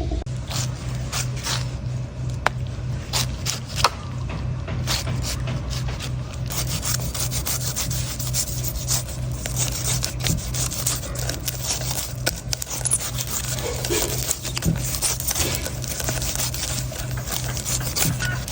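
Knife cutting and scraping a coconut: a run of sharp blade strikes mixed with rasping scrapes, over a steady low hum.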